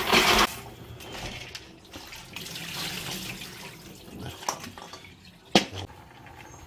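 Kitchen tap running into a steel sink while small sea-snail shells are rubbed clean in a stainless steel bowl. The loud rush of water drops to a softer, uneven splashing about half a second in, and a single sharp knock sounds about five and a half seconds in.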